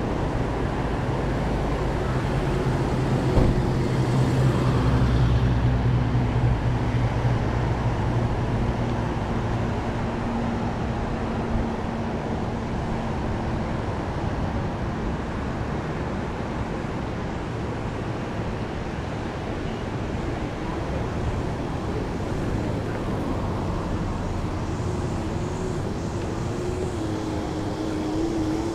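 Steady wind on the microphone and road noise from a moving bicycle, with a motor vehicle's engine hum passing during the first nine or so seconds and a single knock about three seconds in.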